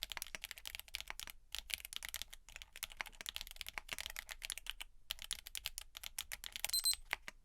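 Typing on a TX66 sandwich-mount custom keyboard with factory-lubed GEON Black tactile switches, aluminium plate and case foam: a dense run of clacky keystrokes broken by a few short pauses. Near the end comes a louder cluster of strokes with a brief ring, and then the typing stops.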